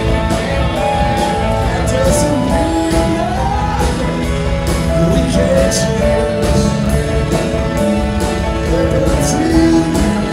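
Live rock band playing loudly: electric guitars, bass, keyboards and drums, with a lead melody sliding up and down in pitch over steady cymbal hits.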